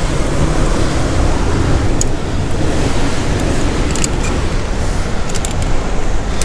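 Steady rumble of wind buffeting the microphone and ocean surf breaking on the rocks, with a few short clicks and scrapes of hands and gear on granite while climbing.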